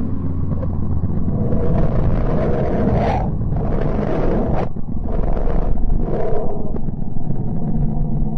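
Deep, continuous rumbling drone of a planet 'sound', the kind of audio made from space-probe radio and plasma data. Rushing, hiss-like swells rise over the rumble about two seconds in and again around five seconds.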